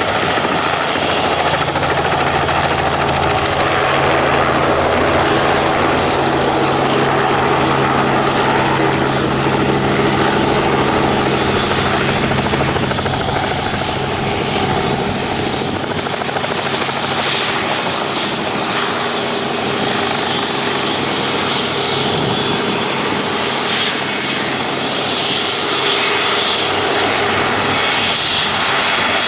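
Turbine helicopter running close by: a steady engine and rotor drone with a high turbine whine, easing slightly in the middle and rising again.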